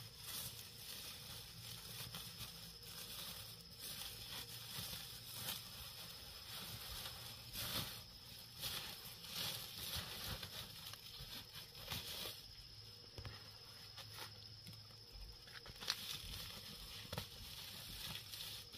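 Woven plastic sack rustling and crinkling as hands of green bananas are handled and packed into it, with irregular soft knocks and a few sharper clicks.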